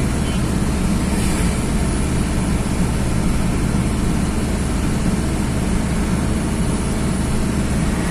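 Truck engine running steadily while driving, with tyre and road noise, heard from inside the cab.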